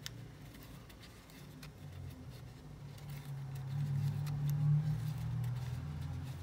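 Faint clicks and light rustling of a crochet hook working through cotton yarn, over a low steady hum that grows louder about halfway through.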